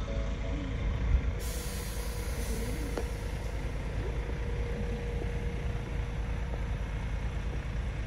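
Bus engine running with a steady low rumble and a faint hiss over it.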